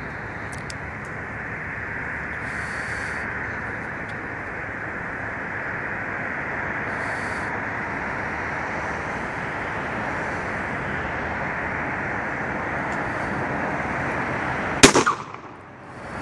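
A single close gunshot about three-quarters of the way in, a sharp crack with a short ringing tail: a sheriff's deputy's finishing shot to the head of a deer injured by a car. Before it, a steady hiss.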